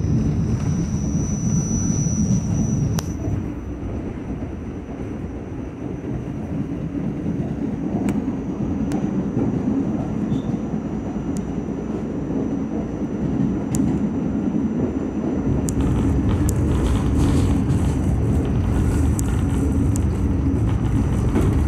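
R46 subway car running along the line, heard from inside the car: a steady low rumble of wheels on rail with scattered sharp clicks. A thin high whine sounds for the first three seconds, and the rumble grows louder about two-thirds of the way through.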